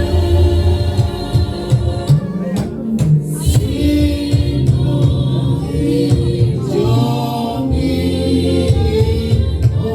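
Gospel music with a choir singing over a steady bass beat.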